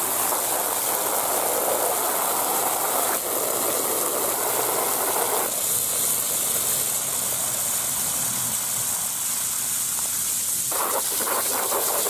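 Garden hose spray nozzle blasting a jet of water onto an iPad on wet pavement: a steady hissing spray and splatter whose tone shifts a few times as the jet moves.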